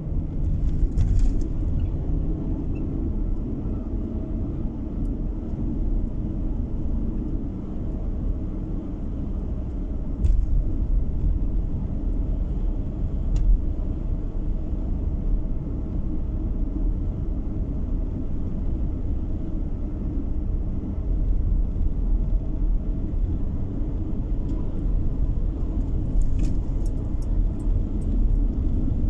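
A car driving on the road: steady low rumble of tyres and engine heard from inside the cabin, with a few faint clicks and rattles, several of them close together near the end.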